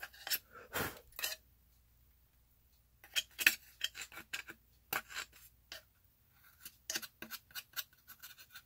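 Scratching and clicking as old crumbling clay filler is picked and scraped out of a statue's cape. The sounds come irregularly: a few in the first second or so, a pause of about a second and a half, then a denser run.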